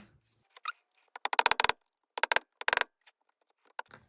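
Light, quick hammer taps driving small nails a little further into the wood of a dolls house porch: a rapid run of taps just over a second in, then two shorter runs soon after.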